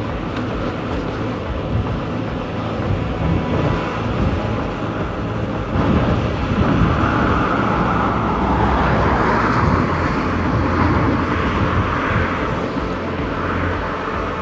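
Wind rushing over the microphone and road noise of a bicycle riding on tarmac. The noise swells louder about six seconds in.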